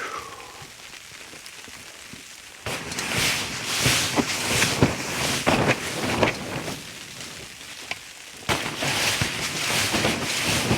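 A broom sweeping snow and sleet off a canopy in quick rasping strokes. The sweeping starts about three seconds in, stops briefly near eight seconds, then starts again.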